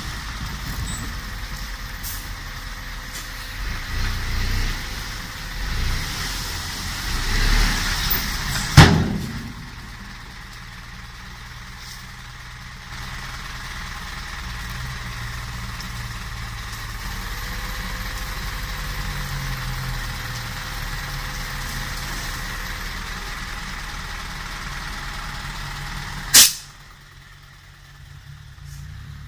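Isuzu FRR 210 dump truck's four-cylinder diesel engine running, surging in revs over the first several seconds, then running steadily while the tipper bed is raised to dump its load of soil. Two sharp, loud bangs cut in, about nine seconds in and again near the end.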